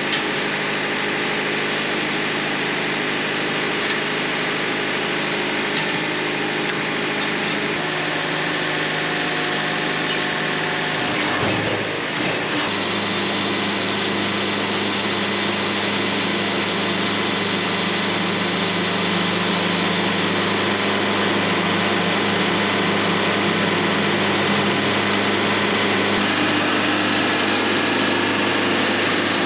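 Portable band sawmill running, its band blade cutting through a poplar log: a steady mechanical drone with a high whine, whose pitch and texture shift about twelve seconds in.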